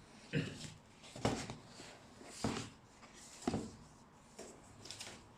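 A shopping bag being handled and turned over, giving short rustles and light taps about once a second.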